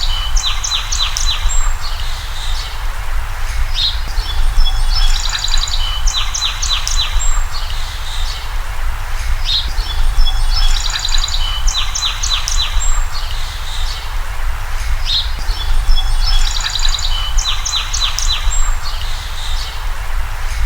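Birds chirping and trilling in the same phrase, repeated identically about every six seconds over a steady low hum: a looped birdsong recording.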